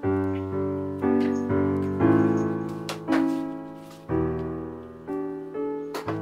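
Background piano music: single notes and chords, each struck and left to ring and fade.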